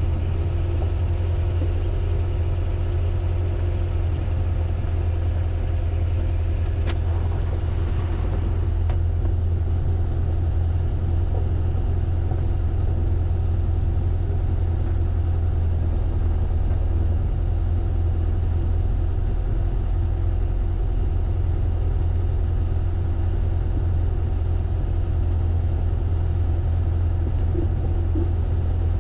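Zenith CH 650 light aircraft engine running steadily at low power, with a constant low drone. A faint high ticking sounds about twice a second, and there is a single short click about seven seconds in.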